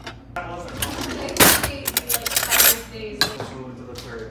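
Ceramic bowls and plates clinking and knocking against each other as a bowl is taken from a kitchen cupboard, with several sharp clatters, the loudest about a second and a half in.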